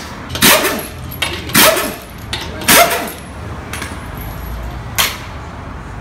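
Three short, loud bursts from a pneumatic tool about a second apart, then a single sharp click near the end.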